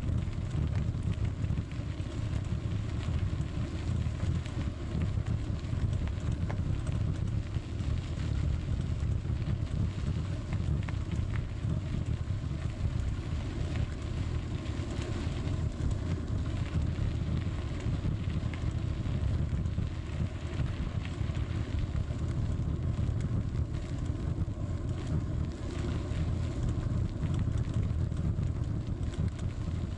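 Wind rumbling on the microphone of a bicycle-mounted camera, with the bicycle's tyres running over a gravel path and small jolts from the bumps. Steady throughout.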